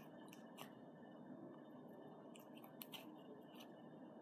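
Near silence with a few faint, scattered sticky clicks of homemade Play-Doh slime being pulled and picked off the fingers.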